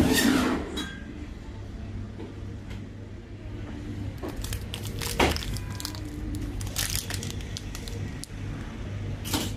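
Grocery shop ambience: a steady low hum with scattered clicks and plastic-packaging crinkles as packaged goods on the shelves are handled. There is a brief louder noise right at the start.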